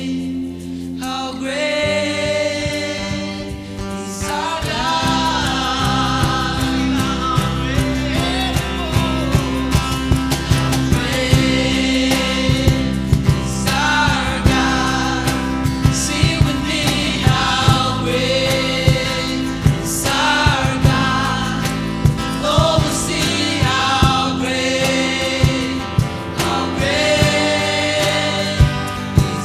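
Gospel worship song: several voices singing together, with band accompaniment. A bass line and a steady drum beat come in about four seconds in.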